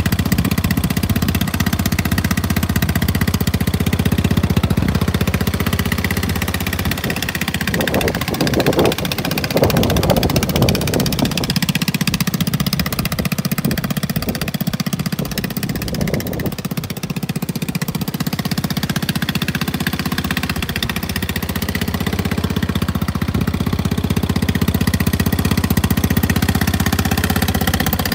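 150cc GY6 scooter engine running steadily through an aftermarket performance racing exhaust muffler, with a brief change in the sound about eight to eleven seconds in.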